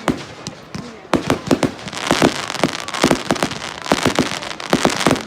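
Fireworks going off: a rapid string of sharp bangs and cracks that comes thick and fast from about a second in, over a crackling hiss that builds from about two seconds in.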